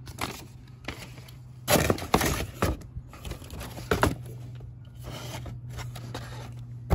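Paper and packaging rustling and crinkling as hands handle an instruction sheet and a new air spring from its box, in several bursts, loudest about two seconds in, over a steady low hum.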